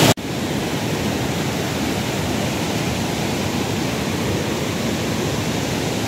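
River water rushing over rapids and a low weir, a steady, even roar of flowing water.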